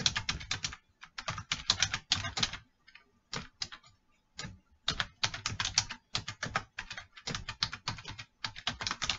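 Computer keyboard typing: quick runs of keystrokes broken by brief pauses between words.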